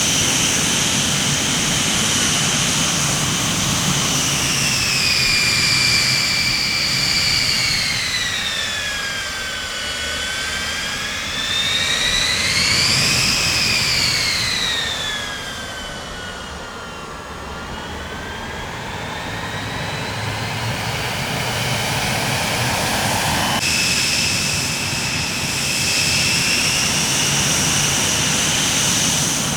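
Jet aircraft engines running with a high turbine whine over a steady rumble; the whine slides down in pitch, rises again, then falls and fades slightly, before jumping back abruptly to a higher steady pitch about three-quarters of the way through.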